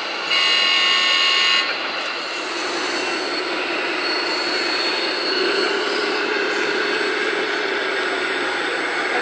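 Steady whine of radio-controlled construction models' small electric motors and hydraulic pump, over a constant noisy background. A louder steady tone with several pitches sounds for about a second and a half just after the start, and a thin high whine sets in about two seconds in.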